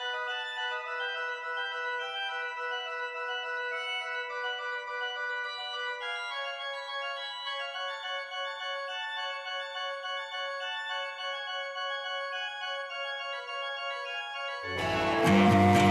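Organ music of slow, held chords with the bass cut away. Near the end it gives way to a louder, full-range music track with guitar.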